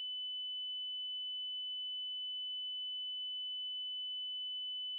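A single steady, high-pitched electronic tone, one pure pitch held without change at an even level, a broadcast-style alert or test tone.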